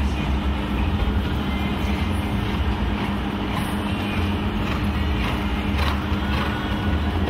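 Steady low rumble and hum of an indoor show-jumping arena, with a few faint knocks around the middle.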